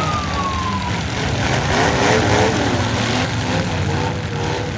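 A siren tone winding down and stopping about a second in, over several demolition derby cars' engines running and revving, their pitch rising and falling as the heat restarts.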